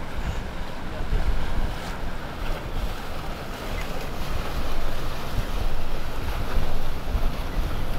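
MTI outboard-powered sport boat passing, the wash of its hull and wake mixed with heavy wind buffeting on the microphone.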